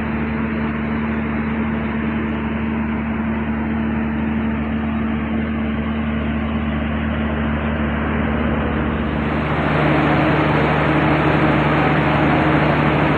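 Deutz BF6M 1013 EC six-cylinder turbo diesel engine running steadily; about nine and a half seconds in its note changes and it runs louder.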